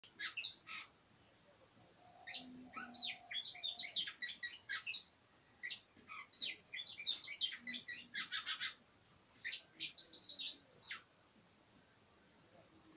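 Oriental magpie-robin singing: four bursts of quick, varied notes and rapid trills with short pauses between them, stopping near the end.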